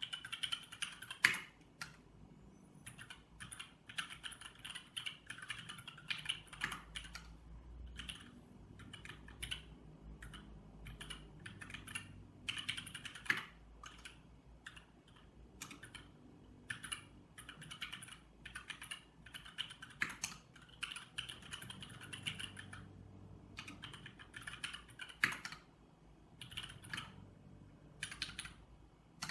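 Typing on a Jupiter75 mechanical keyboard fitted with GMK-profile keycaps: rapid key clacks in bursts with short pauses, and two markedly louder single strokes, one about a second in and one near the end.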